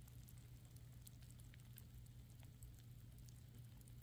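Faint, scattered ticking and crackling from a mass of composting worms moving through moist compost in a worm bin, over a low steady hum.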